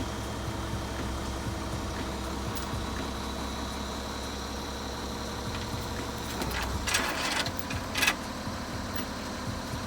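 Loader engine idling with a steady low drone that drops away about two-thirds in, then a brief metallic clatter and one sharp knock as the attachment is shifted on its mounts.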